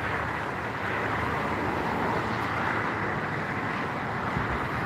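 Steady road-traffic noise from vehicles running on the highway bridge alongside.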